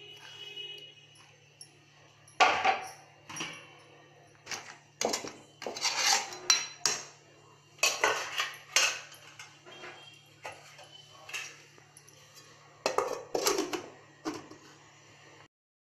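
Metal spoon clanking and scraping against an aluminium pot as crab pieces in thick curry are stirred: a string of irregular knocks. Near the end a metal lid clatters onto the pot. A faint steady low hum runs underneath.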